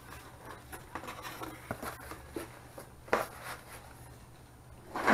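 A cardboard box and the plastic-wrapped speaker inside it being handled: irregular rustling and scraping of cardboard and plastic, with a knock about three seconds in and a louder bump at the very end.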